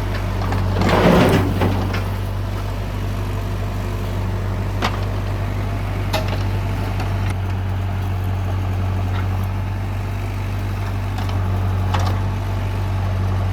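Tractor diesel engine running steadily with a low, even hum. About a second in there is a brief louder rushing burst, and a few sharp knocks come later.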